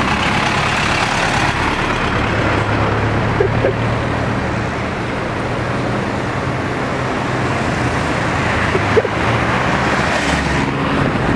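Steady city road traffic, with vehicle engines running and a low hum throughout.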